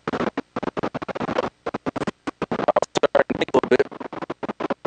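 Scratchy rustling picked up by a clip-on Bluetooth wireless mic worn by someone walking: the clothing rubbing on the mic. The feed is choppy, cutting out to silence many times a second as the wireless link breaks up.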